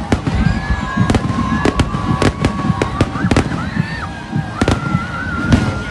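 Fireworks going off: a rapid, irregular series of sharp bangs and cracks over a low rumble, with crowd noise underneath.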